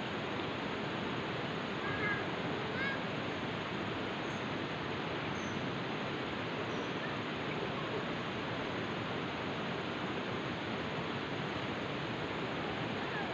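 Steady rushing of river water. A few faint short calls come through around two to three seconds in.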